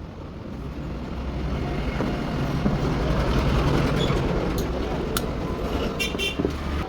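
Bajaj Discover 125's single-cylinder engine running, a low steady rumble that grows louder over the first few seconds, with a few sharp clicks near the end.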